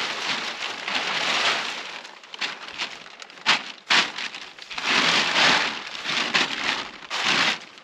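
Large sheet of clear polyethylene film rustling and crinkling as it is pulled out over black plastic sheeting and walked on, in uneven swells with several sharp crackles.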